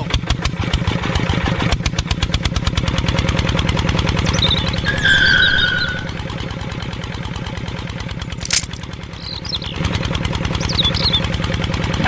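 Tractor diesel engine running with a fast, even chugging beat, a little quieter from about halfway; a single sharp click comes about two-thirds of the way in.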